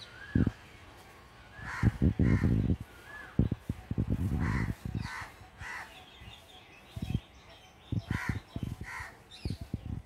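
Alexandrine parakeet giving a string of short, harsh, caw-like squawks, several in quick pairs, with low thumps and rustling between them.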